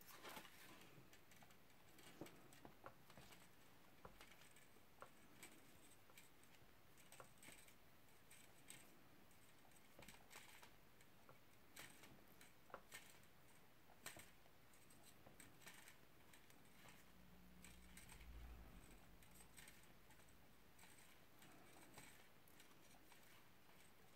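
Faint, irregular small clicks and scratches of thin silver-plated copper wire being wrapped around thicker wire, over near silence.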